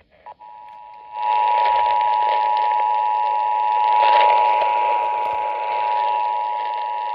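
Emergency Alert System attention signal, two steady tones sounded together, coming from a portable emergency radio's speaker over a loud static hiss that rises about a second in. It is the alert that comes before a broadcast severe thunderstorm warning.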